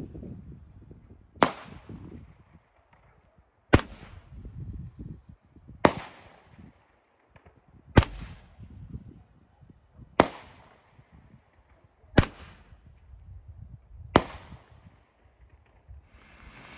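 Consumer fireworks going off: seven sharp bangs about two seconds apart, each with a short echoing tail.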